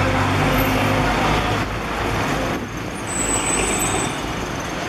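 Road traffic on a busy city street. A bus engine hums close by at first and fades away as it passes, over the steady noise of cars and buses driving by. A thin high whine sounds for about a second near the end.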